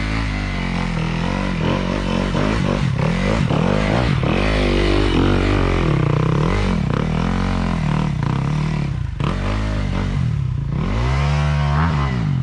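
Dirt bike engine revving up and down over and over, its pitch rising and falling in repeated swoops.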